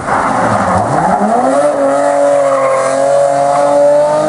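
BMW E30 3 Series rally car under hard acceleration out of a loose-surface corner. It opens with a sudden burst of gravel and tyre noise, then the engine note rises for about a second and holds high and steady.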